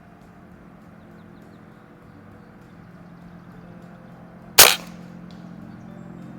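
A single shot from a .22 Beeman underlever pre-charged air rifle with a Buck Rail suppressor, a sharp crack about two-thirds of the way in.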